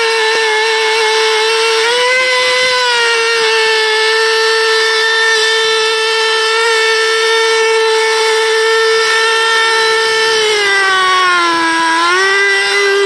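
3.5 cc two-stroke model engine of an FSR-V racing boat running on its stand during running-in, a steady high-pitched whine. About ten seconds in the pitch sags, then picks back up near the end.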